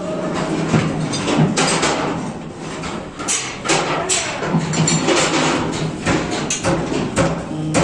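Irregular hammer knocks on Mivan aluminium formwork fittings, as the wing nuts on the tie rods are driven tight, heard together with music.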